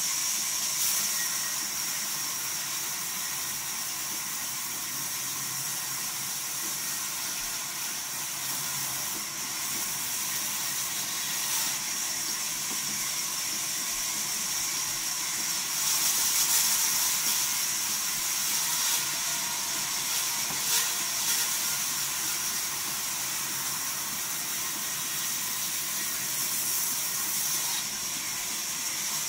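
Large vertical band saw running and cutting timber: a steady high hiss of the blade through the wood, a little louder for a few seconds about halfway through.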